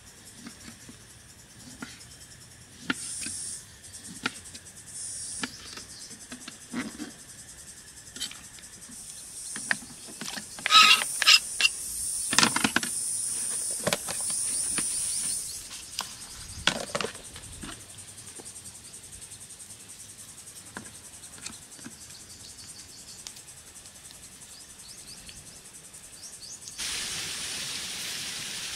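Insects singing in high-pitched bursts, a longer burst about halfway and another near the end, over outdoor ambience with scattered clicks and handling noises.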